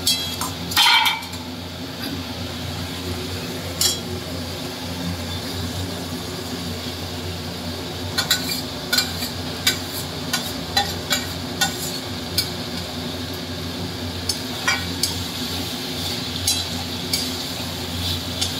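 Metal spatula and steel plate scraping and clinking against an aluminium kadai as small fish are tipped in and stirred into a thick tomato mixture, with scattered sharp clinks over a steady low hum.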